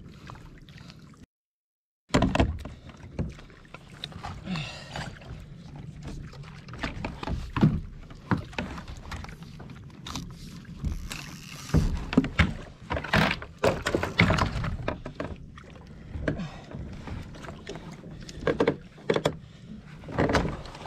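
Repeated knocks and thumps on and around a plastic sit-on-top kayak, with water sloshing against the hull. The audio cuts out completely for about a second near the start.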